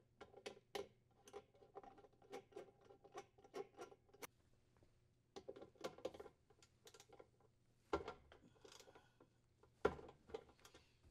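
Ratchet wrench with a 7/16-inch socket clicking as the washer's wash plate mounting screw is threaded in and tightened: runs of light, quick clicks, with two louder knocks near the end.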